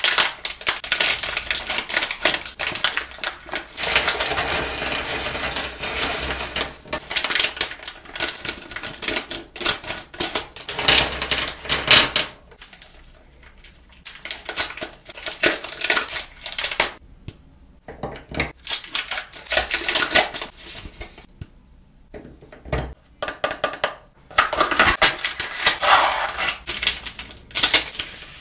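Plastic snack wrappers crinkling and being torn open, with small hard candies clicking and rattling as they spill out. It comes in long stretches of dense crackle broken by short quieter pauses.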